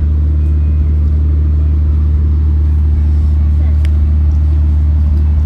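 A loud, steady low drone from a running engine or similar motor, unchanging throughout, with faint voices underneath.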